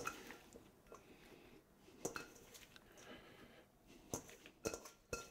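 Quiet kitchen with a handful of faint, short clicks and light knocks of dishes and utensils being handled, about five in all, spread out with near silence between them.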